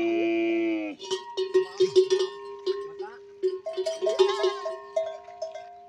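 Bells hung on the necks of camels drinking at a trough, clanking and ringing over and over at an irregular pace as the animals move. A long held tone cuts off about a second in.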